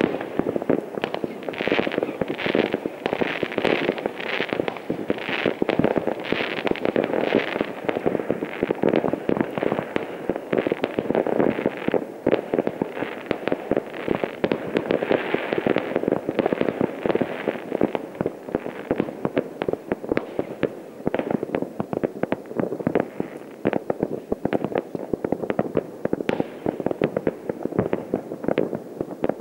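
Many fireworks and firecrackers going off at once: a dense, unbroken barrage of bangs and crackles with no pause, with a run of sharper crackling in the first several seconds.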